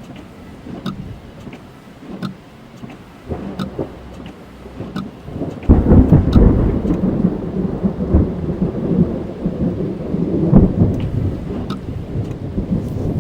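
Thunderstorm heard from inside a car's cabin: rain falling on the roof and windscreen with scattered sharp drop ticks. About six seconds in, thunder breaks suddenly and rolls on as a loud low rumble, swelling again a few seconds later.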